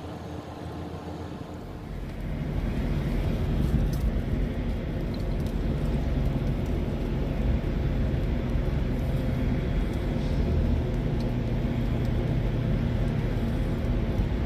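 Vehicle engine running steadily, a low hum that gets louder about two seconds in and then holds.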